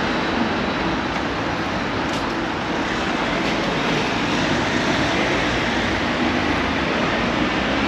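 Steady road traffic going past on a busy city street.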